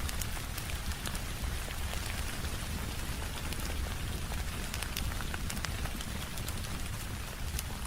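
Steady rain mixed with a crackling wood fire: an even hiss over a low rumble, scattered with many small sharp pops and ticks.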